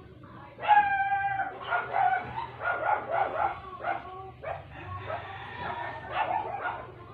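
A young puppy whining and yipping in a run of short high cries. The loudest is one long, steady whine about a second in.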